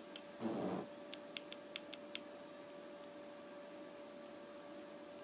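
Electrically triggered valve of a homemade CO2-powered arm cannon clicking about six times in quick succession, fired from the glove's finger contacts; with no CO2 loaded it clicks without shooting. A brief murmur of voice comes about half a second in, over a faint steady hum.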